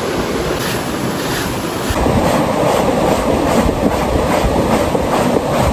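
Steady rush of river water, and from about two seconds in, clothes being scrubbed by hand in a basin of soapy water: a rhythmic swishing and rubbing about three strokes a second.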